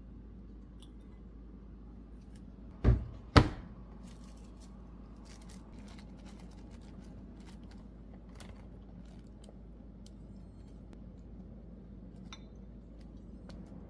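Two sharp knocks about half a second apart, followed by faint scattered clicks and taps of something being handled.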